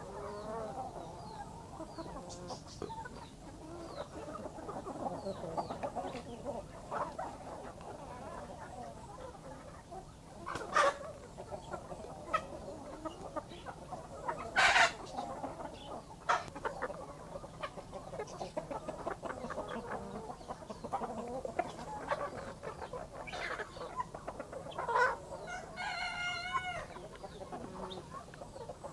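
A flock of backyard chickens clucking steadily. Two short, sharp, loud squawks come about 11 and 15 seconds in, and a longer wavering call comes near the end.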